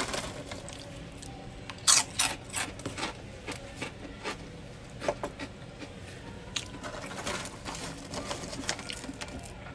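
Chewing and mouth sounds from eating French fries: scattered irregular clicks, a cluster about two to three seconds in and another around five seconds, over a faint steady hum.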